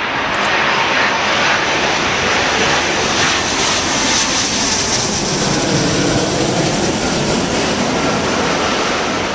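Jet airliner flying low overhead, its loud engine noise building to a peak around the middle as it passes and easing slightly near the end.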